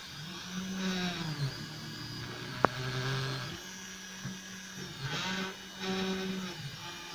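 EasyThreed X1 mini 3D printer printing: its stepper motors whine in short runs of shifting pitch as the axes move, with one sharp click about two and a half seconds in.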